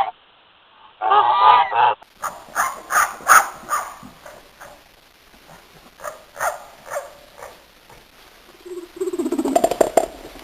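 Geese honking: a burst of loud honks, then a run of quicker calls at about three a second that thin out, with a lower call near the end.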